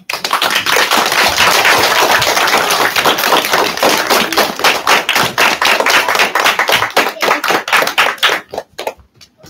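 Audience applauding: dense clapping that starts suddenly and thins out to a few scattered claps near the end.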